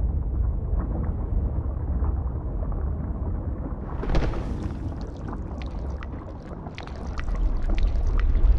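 Sound effects of a volcanic eruption and flowing lava: a deep, continuous rumble. About four seconds in, a sudden burst is followed by crackling and sharp pops, and the rumble swells louder near the end.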